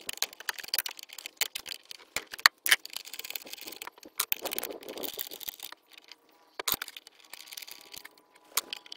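Irregular metal clicks and clinks of a socket wrench on an extension undoing the 10 mm nuts of an intake manifold pipe, with rattles as the metal pipe is worked loose.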